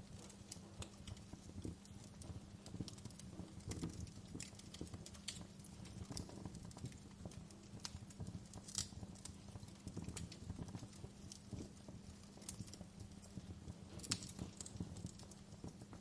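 Wood fire crackling in a fireplace: irregular small crackles and pops over a low rumble, with sharper pops about nine and fourteen seconds in.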